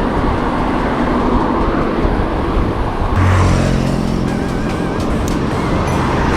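Wind rushing over the microphone of a moving bicycle alongside road traffic. A motor vehicle's engine hum rises about three seconds in as it comes by.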